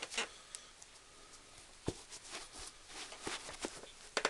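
Leather Sperry Top-Sider boat shoes being worked on the feet: irregular soft taps, clicks and short scuffs of sole and leather. The firmest knock comes about two seconds in, and a quick cluster of sharp clicks comes near the end.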